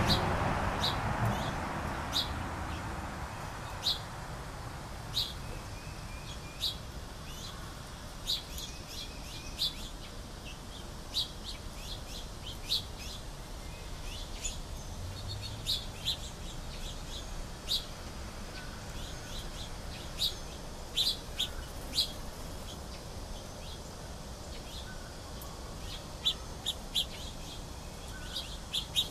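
Small birds chirping: short, high chirps every second or so, with a quick run of chirps near the end. A passing vehicle fades away in the first few seconds.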